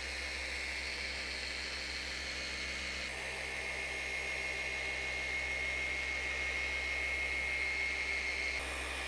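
Flex XC3401 forced-rotation dual-action polisher running steadily with a cutting pad on car paint, a motor whine with one steady high tone held throughout.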